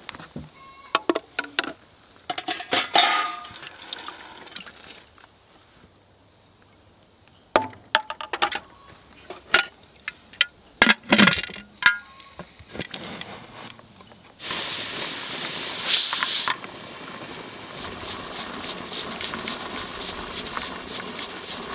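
Glass canning jars clinking against each other and the aluminium pressure canner as they are set in. About two-thirds of the way in a steady hiss of steam from the pressure canner takes over, louder at first and then settling into a lighter, crackling hiss.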